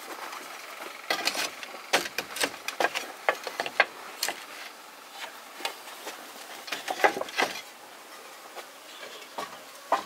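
Irregular light knocks and clatters, about a dozen sharp strikes, loudest about seven seconds in, like hard objects being handled and set down.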